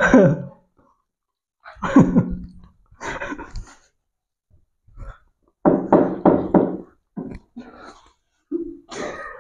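Young men laughing in short bursts, several times, with the longest run of laughter, a few even pulses, about six seconds in.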